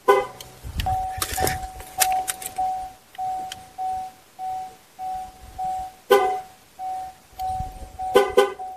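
Handheld GM TPMS relearn tool (Kent-Moore EL-50448) held to the tyre at the valve stem, beeping a steady high tone a little more often than every half second while it triggers the sensor. The vehicle's horn chirps at the start and once about six seconds in, then twice quickly near the end: the double honk that signals the TPMS relearn is complete.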